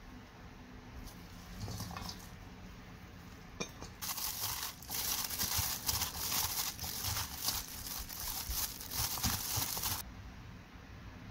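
Disposable plastic food glove crinkling as a gloved hand tosses noodles and vegetable strips in a steel bowl: a dense crackling that starts about four seconds in, runs for about six seconds and stops abruptly.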